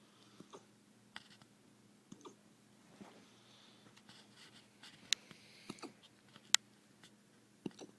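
Beagle-basset dog hiccuping: a string of short, sharp clicks at irregular intervals, some in quick pairs, the two loudest in the second half.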